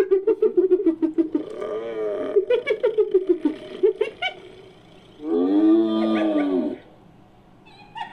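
Sound-designed European cave hyena vocalisation: a rapid, giggling cackle at about eight pulses a second for the first three seconds or so. About five seconds in comes one long, arching whoop lasting about a second and a half.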